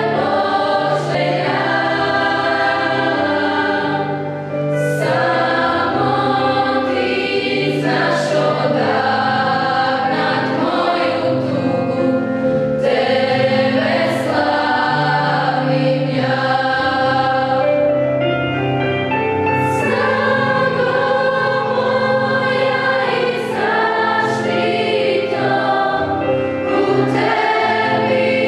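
Youth choir singing in several parts, with held chords that change every second or two and crisp 's' sounds from the words.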